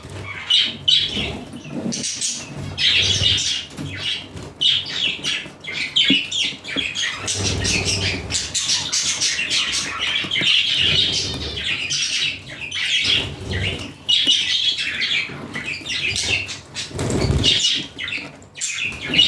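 Budgerigars chattering and squawking continuously, with some flapping and low thumps mixed in.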